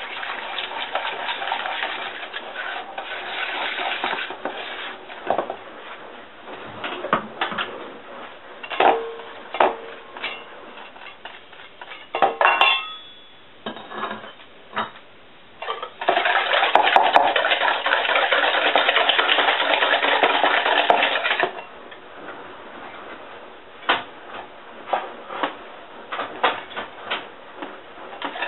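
Egg yolks and sugar being beaten in a stainless steel bowl, the whisk and spatula clattering and scraping against the metal. About halfway through comes some five seconds of fast, steady whisking, with scattered clinks and taps before and after it.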